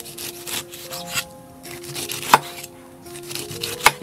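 A large knife slicing the rind off a whole pineapple with scraping strokes, and two sharp knocks of the blade on a wooden chopping block, one a little past halfway and one near the end. Soft background music plays under it.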